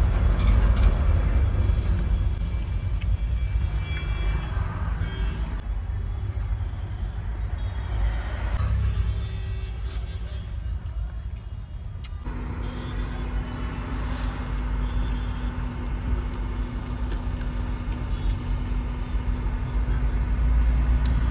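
Low, steady rumble of road vehicles and engines around a truck cab. About twelve seconds in, a steady low hum starts and holds.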